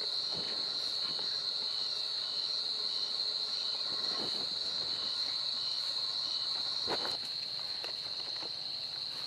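A steady, high-pitched drone of insects, with a second insect chirping in short pulses about twice a second. A single faint knock comes about seven seconds in.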